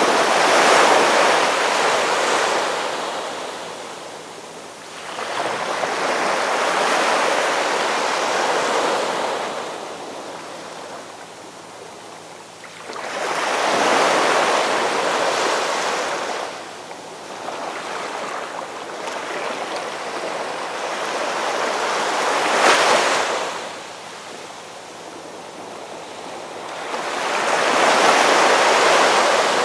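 Ocean waves breaking and washing up on a shore, in slow surges every five to eight seconds that swell and fade away, with a sharper crash about two-thirds of the way through.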